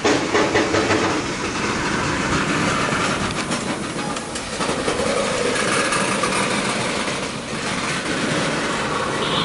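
Freight train tank cars rolling past: steel wheels clicking over the rail joints in an uneven run of clicks over a steady rumble and rattle.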